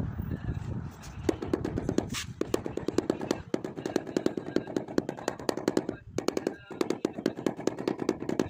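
Rubber mallet tapping rapidly on freshly laid ceramic floor tiles, bedding them into the combed tile adhesive. Fast strings of dull taps, many a second, start about a second in and are broken by a few short pauses.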